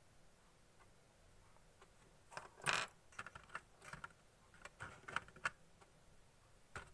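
Light clicks and taps of small geometry instruments against the plastic tray of a metal geometry box, beginning about two seconds in as a quick irregular string with one louder knock.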